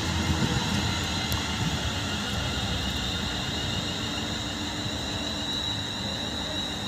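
Two coupled class 730 electric multiple units moving along the platform: a steady low rumble with a constant high whine above it.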